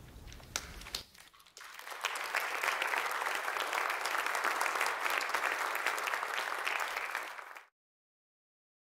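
Audience applauding: a few scattered claps, then full applause from about two seconds in that cuts off abruptly near the end.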